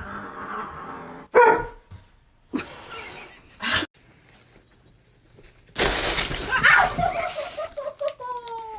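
An animal, most like a pet dog, giving three short loud calls, then a longer noisy stretch with a wavering cry and a falling whine near the end.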